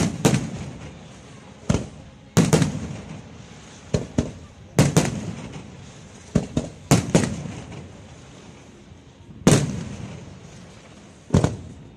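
Aerial fireworks shells bursting overhead: about fifteen sharp bangs at irregular intervals, several in quick pairs, each trailing off in a fading echo.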